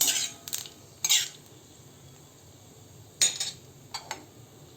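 A spatula stirring and scraping in a kadai: short scrapes and clinks at the start, again about a second in, and twice more near the end, while nigella seeds and a bay leaf fry in mustard oil.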